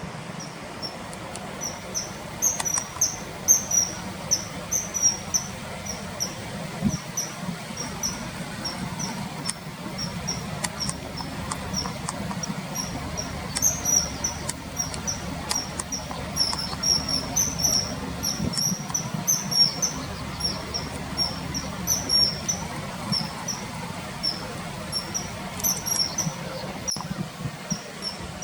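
Common kingfisher calling: short, very high, thin piping notes in rapid runs, repeating throughout, over a steady low rush of flowing river water.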